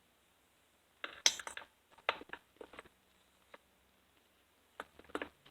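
Bursts of light clicks and knocks from chainsaw parts being handled and fitted as an impulse line is worked into the fuel tank housing of a Stihl MS 660, in four short clusters with quiet gaps between.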